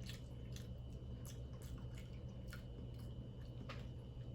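Faint wet chewing and mouth clicks from eating seafood close to the microphone, a dozen or so short smacks scattered over a steady low hum.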